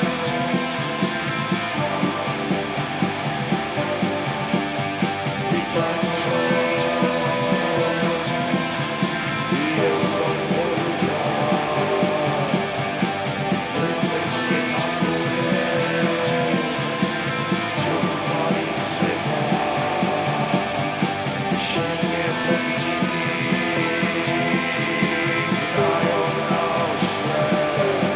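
Rock band music: a dense, steady passage led by guitars.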